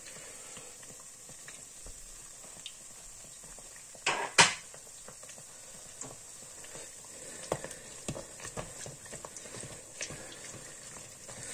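Langos dough deep-frying in hot oil in a stainless steel pot: a steady sizzle full of fine crackling. Two sharp clicks stand out about four seconds in. Near the end a metal spoon works in the pot, ladling hot oil over the dough.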